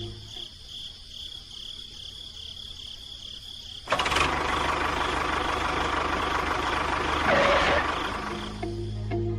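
An engine-like noise with a steady low rumble starts suddenly about four seconds in and runs for about five seconds, swelling briefly near the end before easing off, over faint background music.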